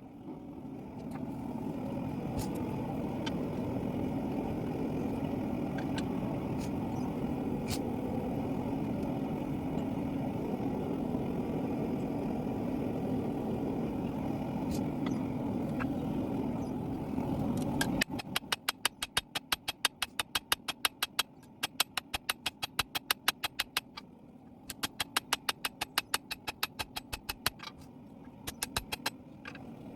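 A steady rushing roar that cuts off about eighteen seconds in. Then come ringing hammer blows on steel at an anvil, about three a second, in runs with two short pauses. The blows are the loudest sounds.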